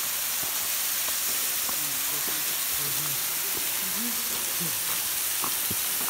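Steady hiss of a waterfall, a thin stream of water falling about 50 feet onto the rock floor below, with faint voices in the background.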